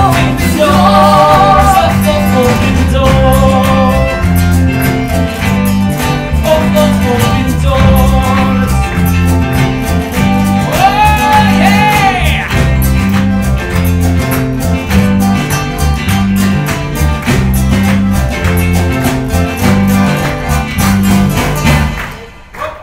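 Live band playing an upbeat song with a steady bass-and-drum beat under guitars and accordion. The music drops away briefly near the end.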